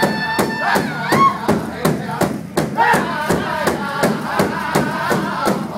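Powwow drum group singing in high, wailing voices over a large shared drum beaten in a fast, steady beat. A high lead line is held over the first second, the voices drop briefly near the middle, then several singers come back in together.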